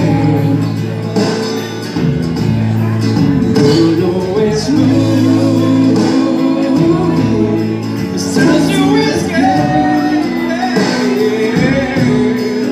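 A man singing karaoke into a microphone over a backing track, both played through PA speakers.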